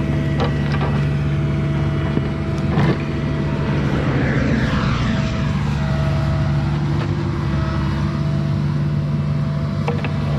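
Mini excavator's diesel engine running steadily at working speed while trenching, with a few short knocks and a brief noisier rush about four to five seconds in.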